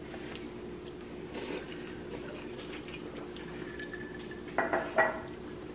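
Tableware clinking during a meal: a few sharp, ringing clinks close together about four and a half to five seconds in, over a steady low hum.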